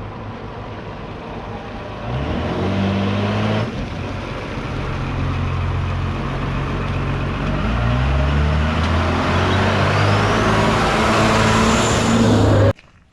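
Monster truck engine running under load and revving in several surges, its pitch stepping up and down, with a thin rising whine late on. It cuts off suddenly near the end.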